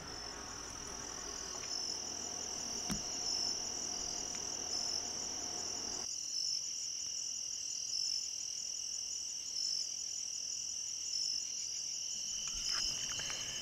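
Night-time insect chorus of crickets: a steady high-pitched trill, with a second insect calling in short, regular pulses about once a second.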